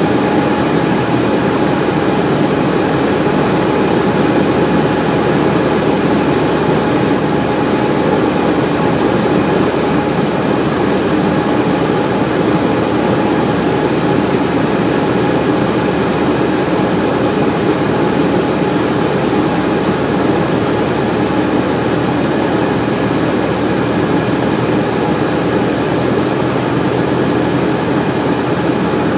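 Cessna light aircraft's piston engine and propeller running steadily at an even speed.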